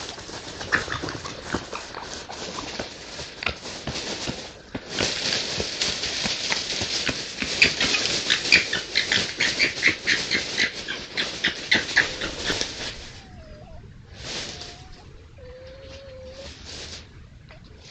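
Red foxes giving harsh, rapid, stuttering chattering calls (gekkering) for about thirteen seconds, the kind of call foxes make when squabbling or fighting. Then it drops away to a few faint, wavering whining calls.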